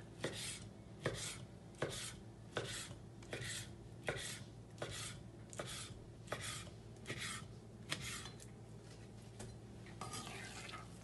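Kitchen knife cutting a skin-on muksun fillet into portions on a wooden cutting board: a steady series of knocks on the board, about one every three-quarters of a second, each with a short slicing hiss as the blade goes through the skin.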